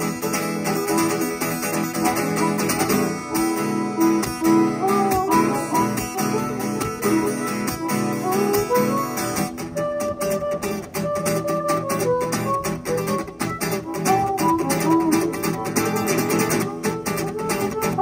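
Live instrumental duet of acoustic guitar and harmonica, played through a small PA. The harmonica plays bending melodic lines over the guitar, which turns to a sharper rhythmic strum about halfway through.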